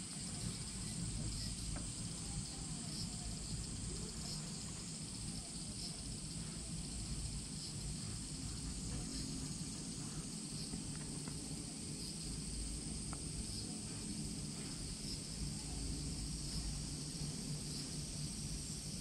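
Steady high-pitched chorus of insects, with a low rumble underneath.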